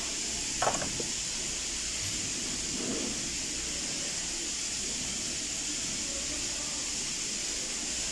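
Steady background hiss, with one short click a little under a second in as parts are handled on top of the engine.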